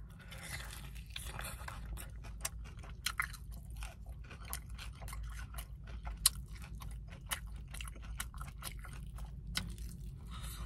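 Close-miked biting and chewing of crispy fried chicken: a crunchy bite in the first second or two, then steady chewing with many small, sharp mouth clicks and smacks.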